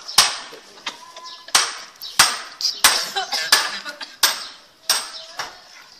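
Metal spoon clinking and scraping against the inside of an aluminium pot while stirring milk: about eight sharp clinks in a steady stirring rhythm, roughly one and a half a second.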